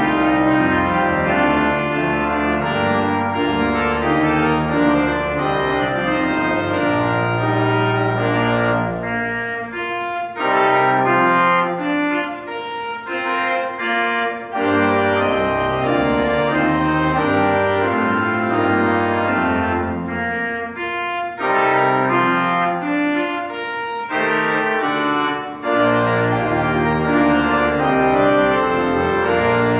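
Church organ playing slow sustained chords over low pedal notes, with a few brief breaks between phrases.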